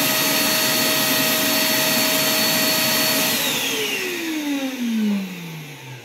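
Einhell shop vacuum's brushed universal motor running at full speed with a steady whine, then switched off about three seconds in and spinning down, its pitch falling steadily. The motor runs again after a broken winding lead was re-soldered.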